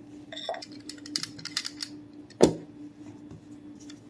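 Biscuit dough being turned out of a mixing bowl onto a floured counter: a run of light clicks and taps in the first couple of seconds, then one loud thump a little past halfway.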